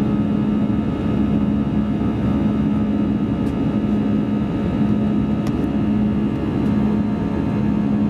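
Cabin noise of an Airbus A320-200 in the climb after takeoff: steady jet-engine drone and rushing airflow, with a strong low hum that throbs slightly.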